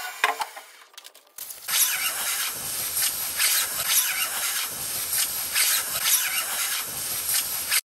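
Fingers rubbing back and forth over a freshly knurled metal hammer handle on the lathe, a scratchy rasping about twice a second that stops abruptly near the end.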